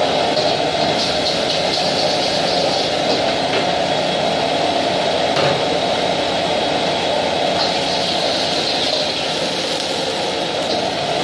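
Steady loud rush of a commercial gas wok burner and the kitchen extractor hood, with a few faint clinks of a metal ladle against the wok as rice is fried and tossed.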